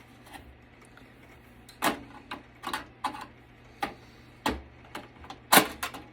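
Irregular sharp clicks and knocks of a desktop computer's metal and plastic parts being worked loose by hand, the loudest knock about five and a half seconds in.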